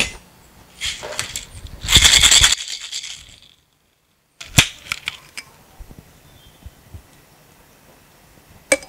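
Ice being shaken in a Boston shaker (mixing glass capped with a steel tin): a dense, fast rattle of ice against glass and steel, loudest about two seconds in, that cuts off abruptly. Afterwards a few scattered clicks and one sharp knock near the end.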